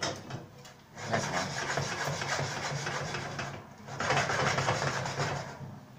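A pot of popcorn shaken on the stovetop in two bouts, the first about two and a half seconds long and the second about a second and a half.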